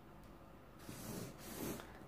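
Felt-tip marker drawn along a plastic square across kraft pattern paper: a soft scratchy rub that starts about a second in and swells twice.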